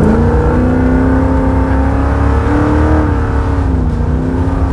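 Holden Torana SS's 355 stroker V8 pulling hard under acceleration, heard from inside the cabin. The loud engine note climbs in pitch, dips briefly about three seconds in, then climbs again.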